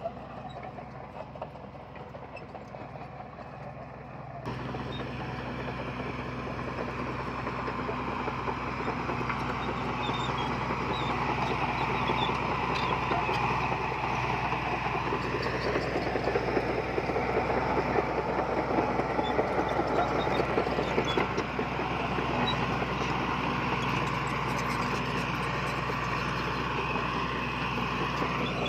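Heavy diesel earthmoving machinery working, its engine note swelling and easing under load. The sound jumps louder about four seconds in.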